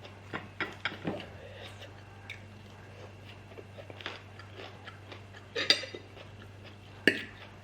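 Close-miked chewing and mouth sounds of a person eating, with scattered soft clicks and two sharper, louder clicks late on, over a steady low hum.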